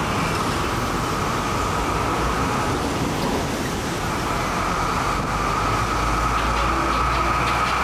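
Street traffic on a busy city avenue: cars and a motorbike passing, with a steady hum of road noise. A low engine rumble from an approaching heavy truck grows over the last couple of seconds.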